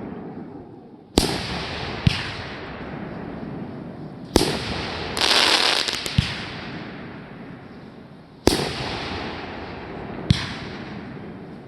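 Fireworks going off: about six sharp bangs, each followed by a long rolling tail, with a loud burst of hissing crackle about five seconds in.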